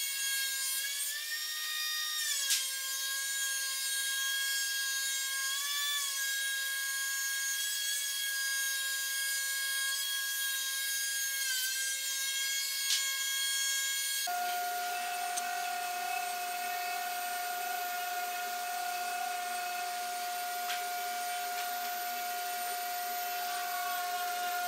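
Woodworking power saw running with a steady high whine that sags in pitch three times as the blade takes load in the wood. About halfway through, the sound changes abruptly to a lower, steady machine tone.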